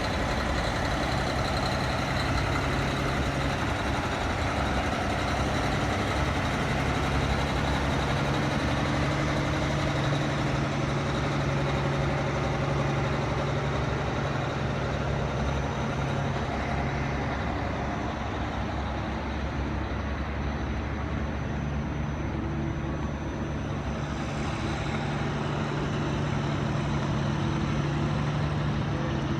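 Heavy engine running steadily with a deep, even hum; the hum dips for a few seconds past the middle and then comes back.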